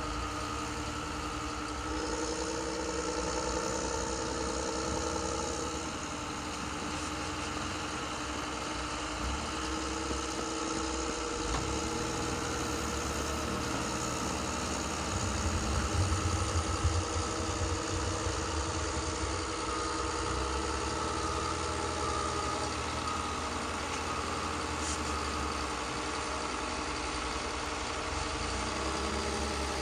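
Radio-controlled model construction machines working, among them a Magom HRC hydraulic wheel loader: a steady engine-like hum with motor whine, louder for a few seconds around the middle.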